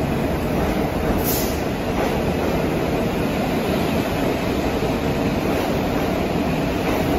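R46 subway train running past along the platform, its cars giving a steady loud rumble of wheels on rail. A short, high-pitched sound cuts through about a second in.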